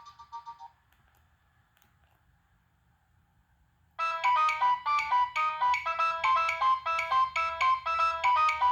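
Preloaded ringtones on a Nokia 6015i playing through the phone's speaker. The last notes of one tune die away within the first second, followed by a few seconds of near quiet. About four seconds in, the next ringtone starts: a quick melody of short notes that repeats.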